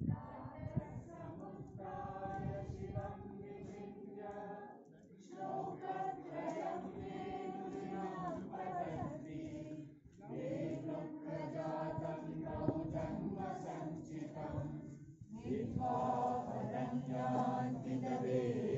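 A group of voices chanting together in unison, in long held phrases of about five seconds each with short breaks between them.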